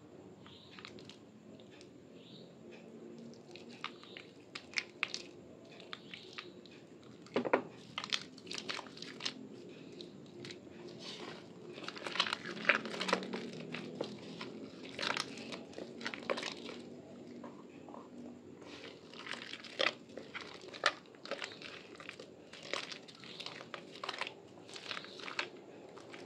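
Soaked Asepso fresh orange bar soap being squeezed and kneaded by wet hands into lather, giving irregular squishing crackles with sharper crunches scattered through, busier from about a quarter of the way in.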